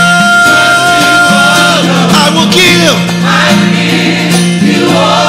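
Live gospel worship song: a singer holds one long note for about the first two seconds, then a voice slides down in pitch, over steady sustained chords from the band.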